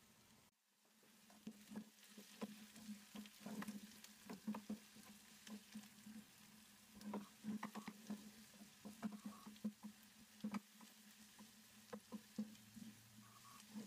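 Wooden spoon stirring and scraping chopped onion being sautéed in a nonstick frying pan: irregular soft scrapes and knocks over a faint sizzle.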